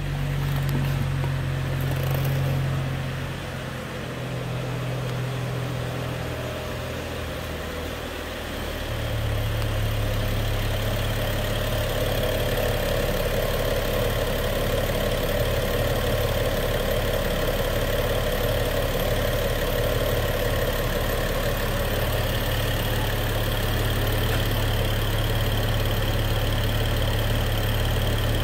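2011 BMW 335i's 3.0 L turbocharged inline-six idling steadily. Its pitch settles slightly lower in the first few seconds, and from about nine seconds in it is louder and closer, heard from over the open engine bay.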